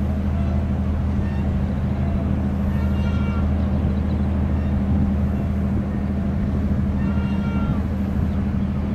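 Steady low drone of a small fishing boat's 110 kW inboard diesel engine under way, with herring gulls' short cries a few times over it.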